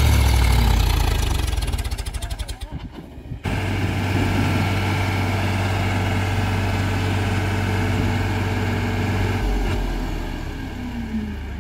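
Powertrac diesel tractor engine running under heavy load, hauling a loaded trolley uphill. About two seconds in the engine note breaks into slow separate thumps and fades. A second or so later it is back to a steady run.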